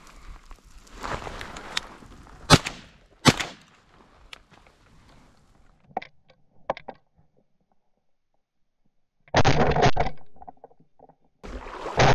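28-gauge shotgun firing at mallards: two sharp shots under a second apart, then two more loud blasts later, the last near the end, as a drake is hit.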